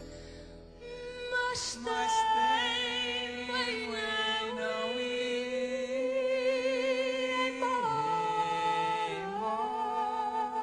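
Two women singing a duet, holding long notes with vibrato.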